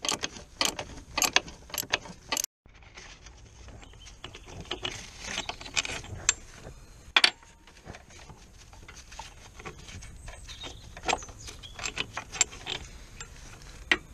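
Metallic clicks and clinks of tools and fittings being handled in a car's engine bay, quick and irregular for the first couple of seconds and sparser after a short break, with one sharp click about seven seconds in.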